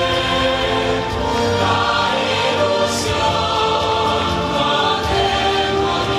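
Recorded stage-musical song played back for a lip-synced show: a choir singing with instrumental backing.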